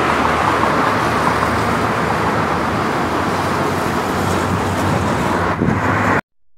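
Steady road traffic noise from cars on a wide avenue, a constant rush with a low engine hum, cutting out abruptly near the end.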